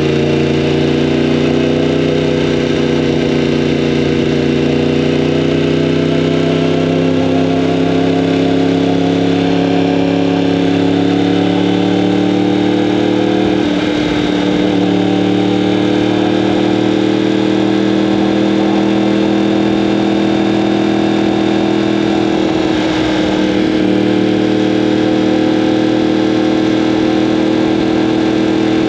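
A 2015 Yamaha R1M's crossplane-crank inline-four with an Akrapovic exhaust, running continuously. The engine note climbs slowly over the first half, then holds steady, with a brief break in the note about halfway through and again later.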